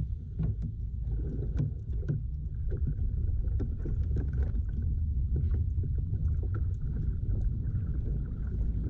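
Kayak moving on the water: irregular small splashes and knocks of water against the hull over a steady low rumble.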